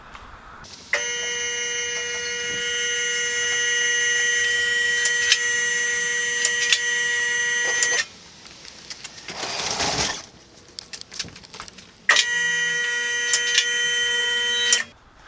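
Electric motor of a car lift running with a steady whine to raise the car, with sharp clicks through it. It stops about eight seconds in, a short rushing hiss follows, then it runs again for about three seconds and cuts off.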